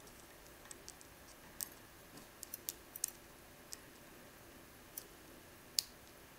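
Faint, irregular metallic clicks from a pick working the pin stacks of an Abus C95 euro cylinder lock under light weighted tension, as pins set at the shear line. One sharper click comes shortly before the end.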